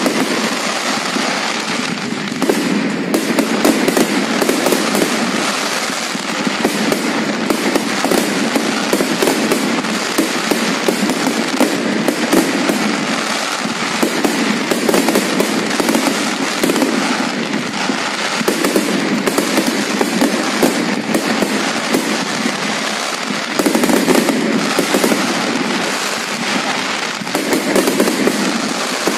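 Aerial fireworks display: a continuous dense barrage of bangs and crackling from many shells bursting at once, with no pause.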